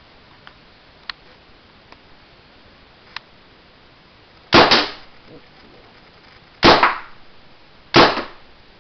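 Compressed-air marker firing fuzzy Velcro-catching balls: three loud sharp shots about a second and a half apart, the first a quick double, each with a short echoing tail, after a few faint clicks.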